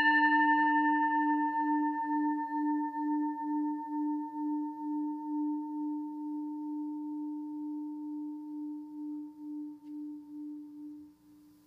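A single struck bell-like tone ringing out and slowly fading, its low hum pulsing steadily as it decays, dying away about eleven seconds in.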